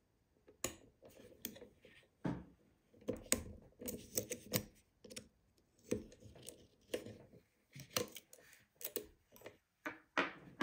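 Lock pick and tension tool working the pin tumblers of an old UAP Euro cylinder: irregular small metallic clicks and scrapes with a few dull knocks. Near the end the tools are drawn out of the keyway with a louder scrape.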